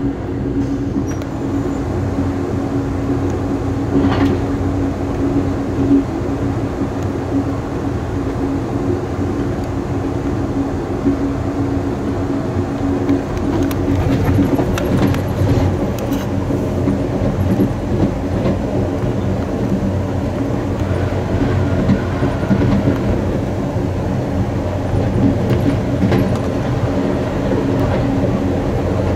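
Amtrak Coast Starlight passenger train running along the track, heard from its rear car: a steady rumble of wheels on rails under a constant low hum, with a few light clicks from the rail joints.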